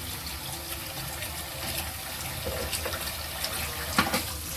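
Kitchen tap running steadily into a sink, with a couple of light knocks near the end.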